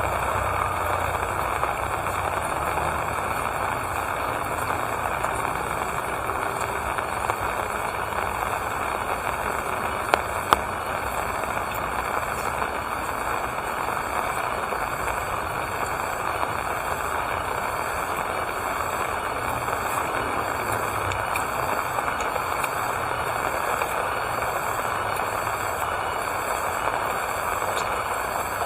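Steady rain falling, an even hiss with scattered drips tapping, and two sharper taps about ten seconds in.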